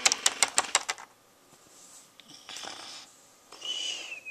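Quick hard plastic taps, about seven a second, for the first second, as a Littlest Pet Shop figurine is tapped along a surface. Then two breathy hisses from a child's voice, the second ending in a falling whistle, a cartoon-style snore.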